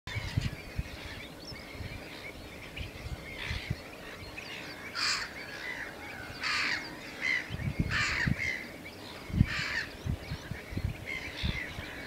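Wild birds calling: four harsh, rasping calls about a second and a half apart starting about five seconds in, among smaller chirps. Gusts of wind buffet the microphone with low rumbles.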